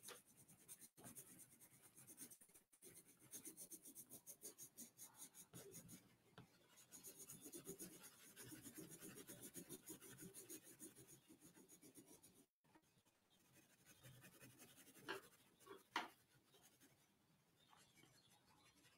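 Pencil shading on sketchbook paper: faint, quick back-and-forth scratching strokes, several a second, that ease off after about twelve seconds. A couple of light knocks come near the end.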